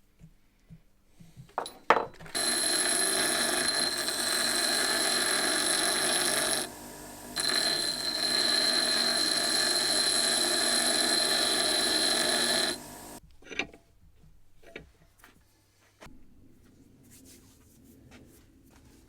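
An electric power tool running at a steady high speed with a metallic whine, in two runs of about four and five seconds with a brief stop between, after a few handling knocks.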